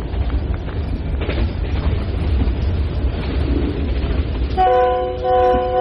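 Diesel-electric locomotive running at speed, heard as a heavy low rumble with wind buffeting. Near the end its air horn sounds a steady multi-note blast, briefly broken and then held.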